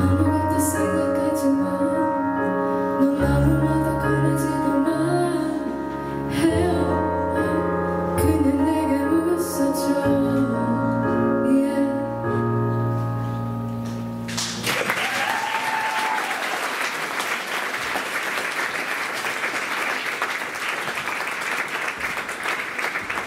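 A woman singing with piano accompaniment; the song ends about two-thirds of the way through, and audience applause follows and carries on.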